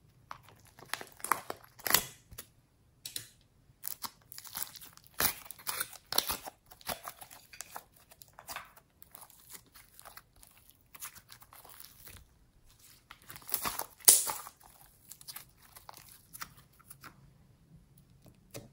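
Hands squeezing and stretching thick pink slime, giving irregular sticky crackles and little pops, with a plastic slime container handled near the start. The loudest clusters come about two seconds in and again about three-quarters of the way through.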